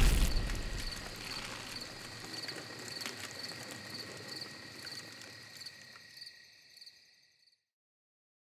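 A low rumble dies away at the start, under a steady high chirping that pulses in a quick even rhythm. The chirping fades out about seven seconds in.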